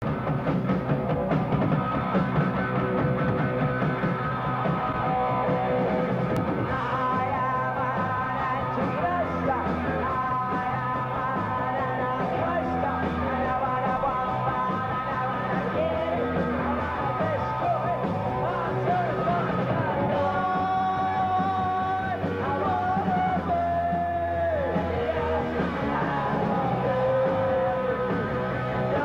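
Punk rock band playing: electric guitar, bass and drums, with a male lead vocalist singing over them.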